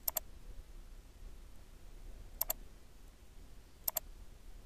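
Computer mouse button clicking three times, each click a sharp double tick of press and release, as transform handles are grabbed and adjusted.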